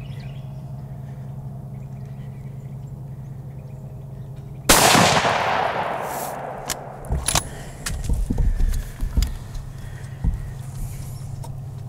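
A single shot from a CVA Cascade bolt-action rifle about five seconds in, sharp and loud, ringing out and dying away over a couple of seconds. Scattered clicks and rustles of the rifle being handled follow.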